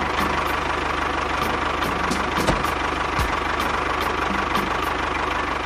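Mini tractor's small engine running steadily, a fast, even chugging with a faint steady whine above it.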